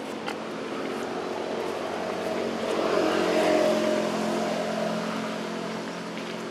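An engine passing by, growing louder to a peak about halfway through and then fading away.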